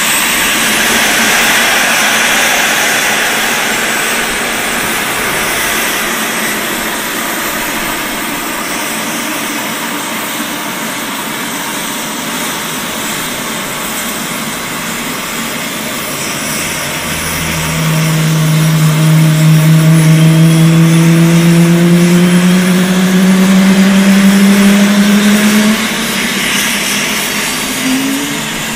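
Blue Angels F/A-18 Hornet's GE F404 jet engines starting up: a steady turbine whine and hiss. A little past halfway a low hum swells in and rises slowly in pitch for several seconds as an engine spools up, then falls away, with a brief rising whine near the end.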